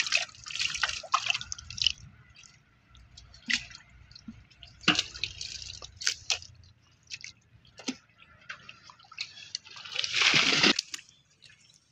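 Water splashing and dripping in irregular bursts and splats, with a longer, louder splash about ten seconds in.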